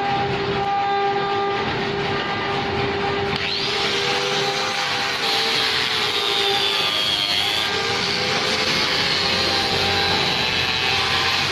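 Sawmill saw running with a steady whine. About three and a half seconds in, a higher, wavering whine joins as the blade cuts into wood.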